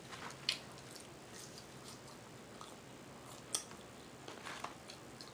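Quiet chewing of food, with a few short, soft mouth clicks and smacks; the sharpest comes about three and a half seconds in.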